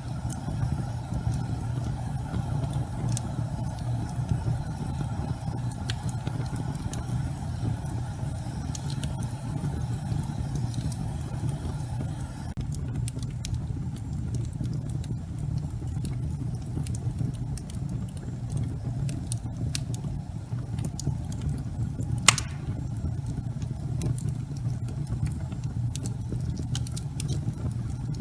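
Wood logs burning in a fireplace: a steady low rumble of the fire with scattered small crackles and one louder pop late on.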